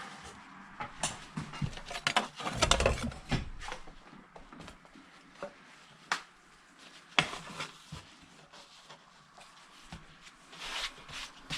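Scattered knocks, clicks and rustling of debris being stepped on or moved, with a louder clatter about two to three seconds in.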